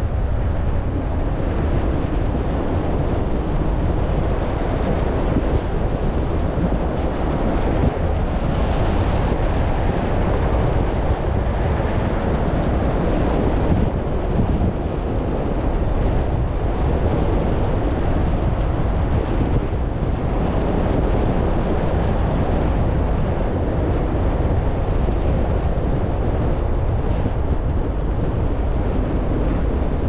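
Steady road and wind noise of a car driving: a dense, even rumble with no breaks.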